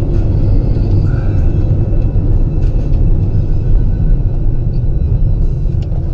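Steady low rumble of a moving vehicle: road and engine noise with a few faint ticks.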